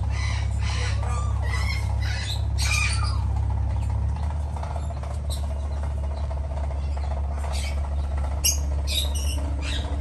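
Short, high-pitched squeaky animal calls in quick runs, many in the first three seconds and again near the end, over a steady low hum.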